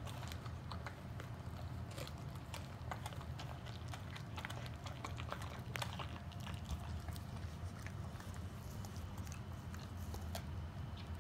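Pit bull chewing and gnawing a raw half chicken, with irregular wet crunches and clicks of teeth on meat and bone, thinning out after about eight seconds. A steady low hum runs underneath.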